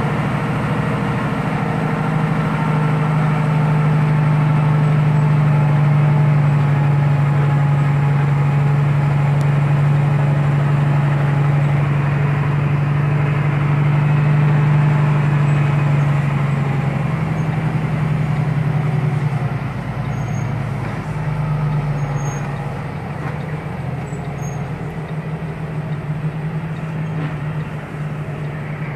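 Diesel engine of a loaded heavy truck running steadily, heard from inside the cab: a loud, even drone for the first sixteen seconds or so, easing off at about nineteen seconds and running quieter after that.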